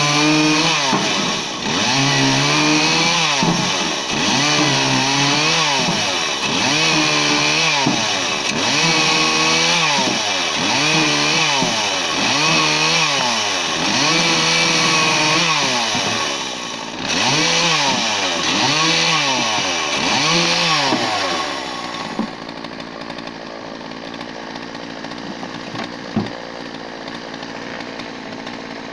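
Husqvarna 142 two-stroke chainsaw rapidly cross-cutting slab wood into short firewood pieces: the engine pitch rises and drops with each cut, about one cut every second and a half. For the last several seconds it runs steady and quieter at idle.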